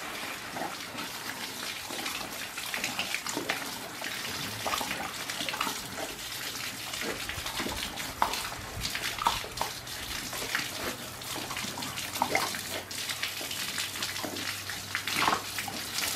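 Garden hose spraying water onto wet brick pavers and plant leaves: a steady hiss of spray with irregular, louder splashes throughout.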